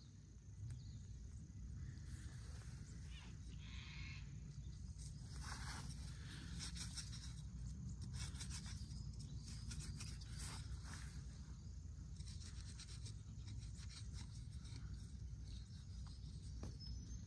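Faint rubbing and rustling as green leaf is pressed into the socket of a wooden bow-drill bearing block to lubricate it, the handling busiest in the first half, over a steady low rumble.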